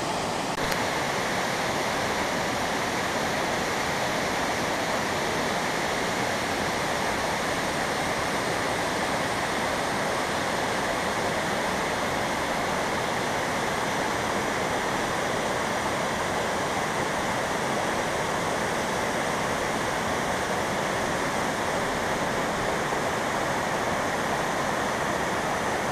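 Large cascading waterfall rushing: a steady, even noise of falling water.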